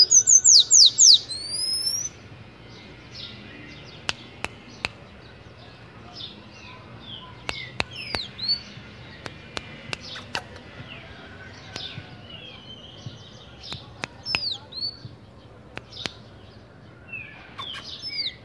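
Caged sanhaço (sayaca tanager) calling. A loud run of rapid, high squeaky notes fills the first two seconds, then scattered short chirps follow, with occasional sharp clicks between them.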